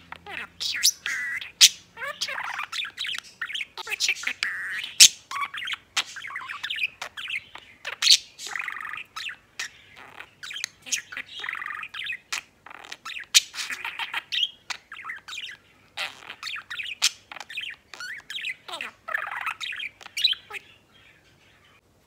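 A male budgerigar chattering and warbling: a fast, unbroken run of chirps, clicks and squawky notes that breaks off about a second before the end.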